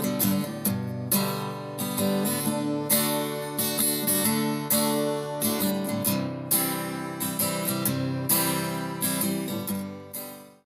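Music: an acoustic guitar strumming chords, fading out near the end.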